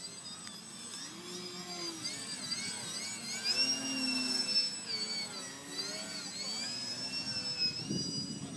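Techone SU-31 RC plane's electric motor and propeller whining in flight, its pitch gliding up and down over and over as the throttle changes, and held steady for about a second midway.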